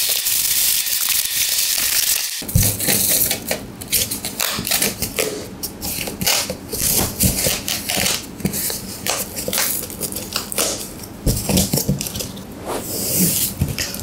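Plastic bag and cardboard box handling: a steady hiss for about the first two seconds that cuts off suddenly, then irregular crinkling of plastic wrapping and knocks of cardboard flaps as a desktop PC is packed into its carton.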